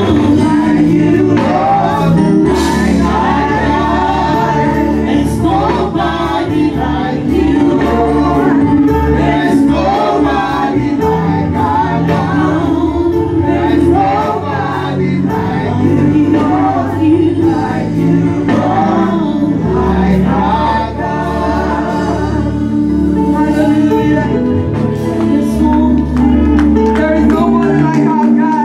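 Gospel worship music: a choir and lead singers with a live band, a steady bass line underneath.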